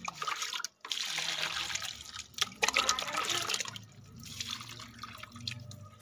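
Water poured from a small plastic mug onto potted plants, splashing and trickling into the soil and onto the concrete floor. The splashing comes in uneven pours, loudest from about a second in to the middle, and lighter after.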